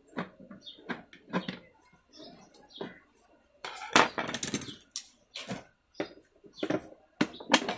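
Irregular clicks, taps and clattering knocks of hard plastic: the plastic cover of an electric geyser being handled and worked loose after its screws have been taken out, loudest about four seconds in.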